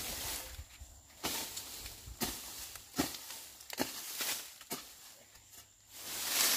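Hand hoe chopping into soil and weeds in steady strokes, about seven in all, roughly one a second, each a sharp strike followed by a short scrape of earth. A longer scraping rustle builds near the end.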